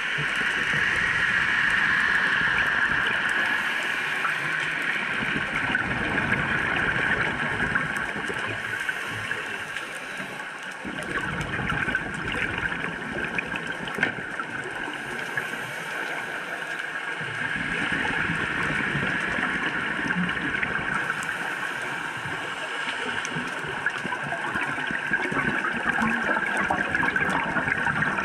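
Underwater ambience heard through a diving camera: a steady hiss, with gurgling surges of a scuba diver's exhaled regulator bubbles that come and go every few seconds.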